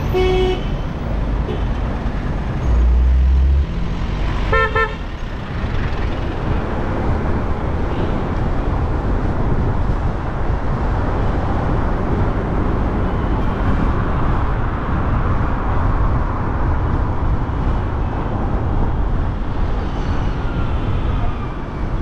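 Busy city road traffic: a steady wash of car engines and tyre noise, with a short car-horn toot at the start and another about four and a half seconds in. A brief deep rumble comes about three seconds in.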